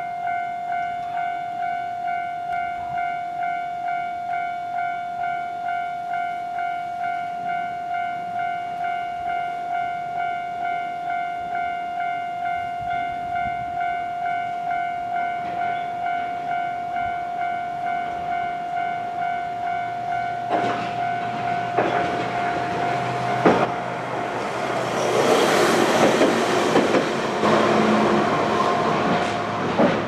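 Japanese level-crossing warning bell ringing in a steady, evenly repeated electronic ding. About twenty seconds in, a tram on the Hankai tramway clicks over the rail joints and passes across the crossing, the loudest part. The bell stops near the end as the crossing clears.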